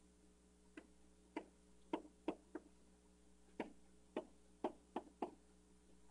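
A stylus tapping and clicking against an interactive whiteboard as numbers are handwritten on it: a run of five sharp taps, a pause of about a second, then five more.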